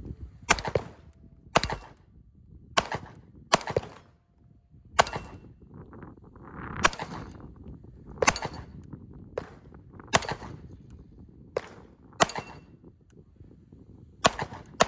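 CZ P-07 pistol firing a string of about a dozen shots at a steel spinner target, unevenly spaced roughly a second apart.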